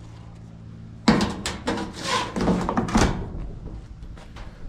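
Clunks and clatter of a Whirlpool clothes dryer's metal cabinet and door being handled and closed up: a run of sharp knocks starting about a second in and lasting about two seconds, after a faint steady hum.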